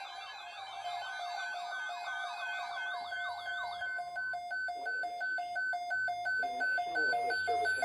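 Electronic siren sounds, warbling and swooping sweeps that fade out about halfway through, over a steady alert tone that breaks into short even beeps, about three a second, from about four seconds in.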